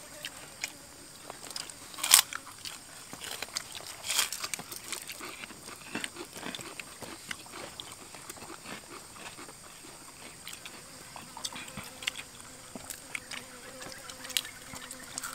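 People eating crispy food with their hands, crunching and chewing, with scattered short crackling bites; the loudest crunches come about two and four seconds in.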